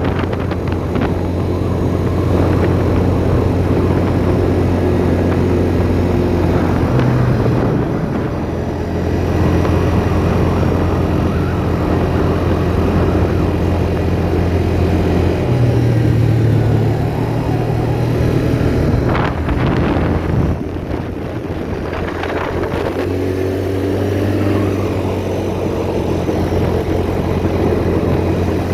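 Four-wheeler (ATV) engine running steadily while the quad is ridden. The engine note shifts pitch a few times and drops back briefly about two-thirds of the way through before picking up again.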